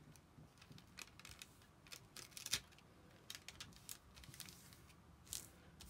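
Faint, scattered rustles and light clicks of a translucent paper treat bag being handled and pressed along its glued edges by fingers, with one sharper click about halfway through.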